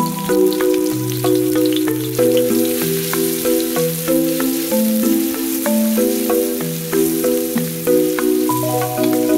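Instrumental background music, a melody over a bass line, over chopped garlic and dried red chillies sizzling in hot oil in a wok. A wooden spatula clicks and scrapes as it stirs them.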